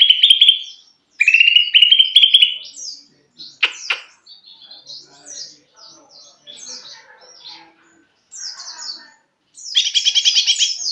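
Caged green leafbird (cucak ijo) singing, a bird still learning its song. Two fast trills of repeated notes in the first two seconds, then a sharp call and a run of softer, varied chirps, and a loud fast trill near the end.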